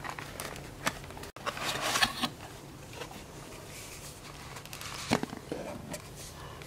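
Paper and cardboard perfume packaging being handled: rustling as a box is opened and a cylindrical case and glass bottle are taken out, with a few light taps and clicks.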